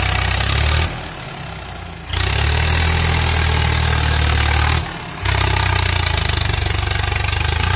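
Swaraj 744 FE tractor's three-cylinder diesel engine running steadily as it pulls a loaded trolley over heaped mud. The sound dips away briefly twice, about a second in and again near five seconds.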